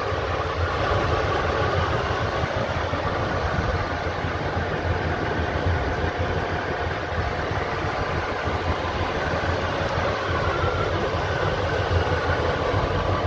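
1966 Cadillac DeVille's 429 cubic-inch V8 idling steadily, heard close over the open engine bay.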